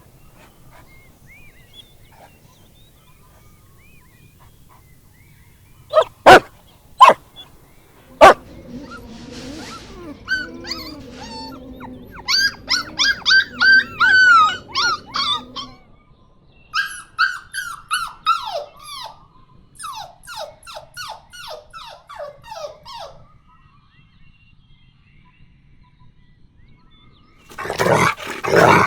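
Golden retriever puppies giving a few sharp barks, then whining and yelping in quick runs of high, rising and falling cries, with a louder flurry near the end.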